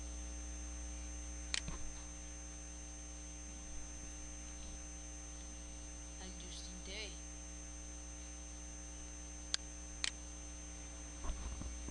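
Steady electrical mains hum on the recording, with a few sharp clicks: one about a second and a half in and two close together near the end, computer mouse clicks as a web address is picked from the browser's address bar.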